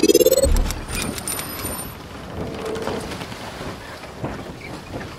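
Animated logo intro sound effects: a rising whoosh that ends in a low boom about half a second in, then a spray of glittery clicks with high ringing tones for a second or so, settling into a steady hiss with scattered ticks.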